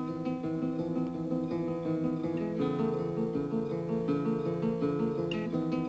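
Background music: a lively tune on plucked and strummed acoustic guitar.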